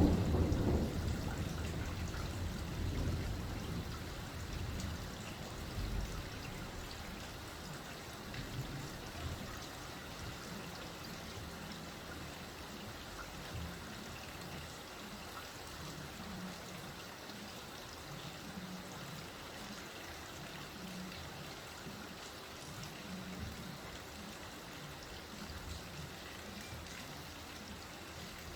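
Steady light rain with water trickling and dripping. A low rumble dies away over the first few seconds.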